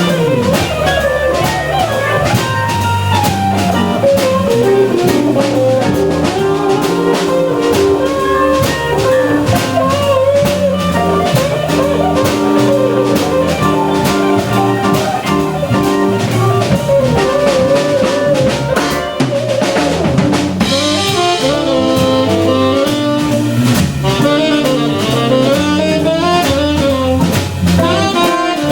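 Live organ-jazz band playing: tenor saxophone over Hammond organ, electric guitar and drum kit. The cymbals get brighter about two-thirds of the way in.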